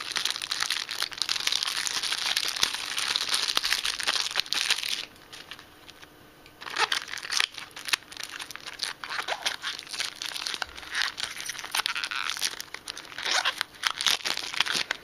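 Clear plastic wrapping crinkling and tearing as a small cereal-box toy car package is unwrapped, dense and continuous for about five seconds. After a short lull, scattered crinkles and clicks as the small cardboard box and the plastic bag inside are handled and opened.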